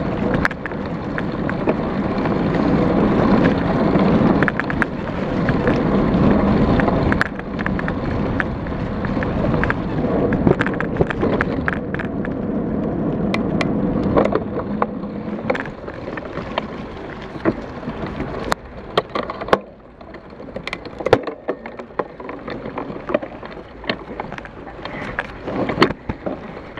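Mountain bike ridden along a trail, heard from a GoPro on the bike: a steady rush of tyre and wind noise, then, from about 18 seconds in, quieter rolling broken by sharp clicks and knocks as the bike rattles over rough woodland ground.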